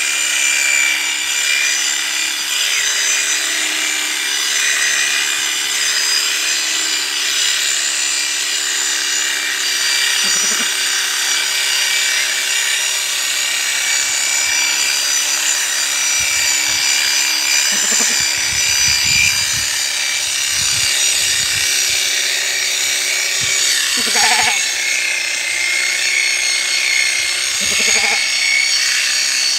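ST777 electric sheep shearing clipper running steadily with a high-pitched whine as its cutter head works through a sheep's fleece.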